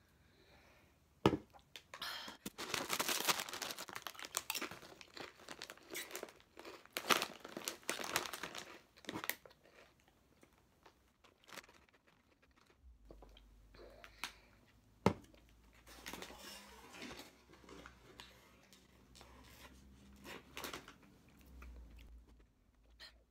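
Thin snack packaging crinkling and tearing open in a dense rustle for several seconds, after a single sharp knock about a second in, followed by quieter rustling and crunchy chewing.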